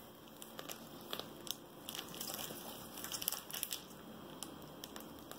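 Faint crinkling and crackling of a disposable plastic piping bag being squeezed as whipped cream is piped around the base of a cake, busiest in the middle.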